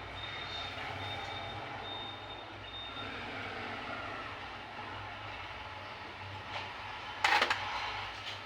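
Steady background traffic noise with a low hum and a thin high tone that comes and goes early on. A sharp, loud clatter sounds briefly about seven seconds in.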